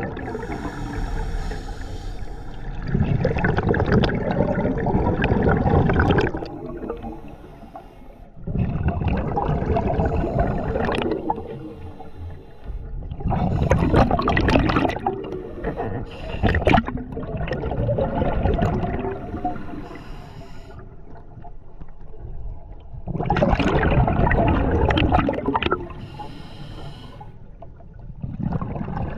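Scuba regulator breathing heard underwater: a rush of exhaled bubbles comes every few seconds and lasts two to three seconds each time, with quieter gaps between breaths.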